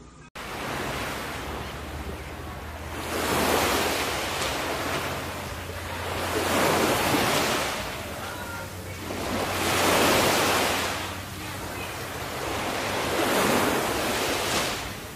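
Ocean waves washing in, four slow surges that each swell and ebb over about three and a half seconds.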